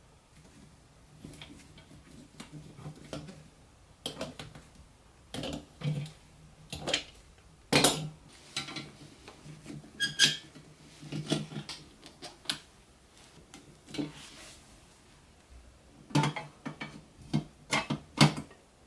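Small metal parts of a toy truck clinking and knocking irregularly as they are handled and fitted together by hand, with a faint steady hum underneath.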